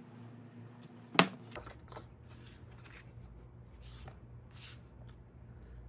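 Utility knife blade cutting through a card pattern on a cutting mat: a sharp click about a second in, then several short scratchy swishes of blade and paper.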